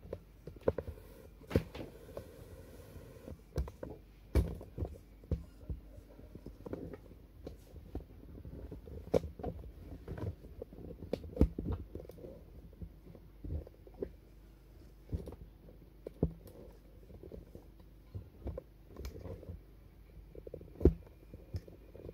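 Irregular knocks, taps and bumps, some sharp, with rumbling handling noise over a faint steady hum.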